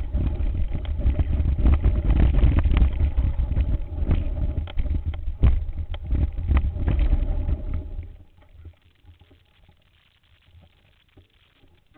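Mountain bike ridden over rocky singletrack: wind rumble on the microphone with frequent sharp knocks and rattles from the bike and camera. About eight seconds in it drops away suddenly, leaving only faint ticks.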